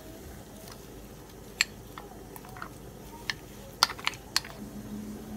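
Light clicks and knocks of a spatula and a ceramic bowl against each other and the pan as the last of the marinade is scraped out, several single taps with a quick cluster of three about four seconds in.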